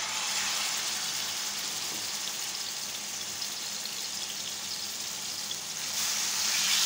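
Marinated chicken sizzling hard in hot oil as spoonfuls go into the frying pan; the sizzle gets louder about six seconds in as another spoonful lands in the oil.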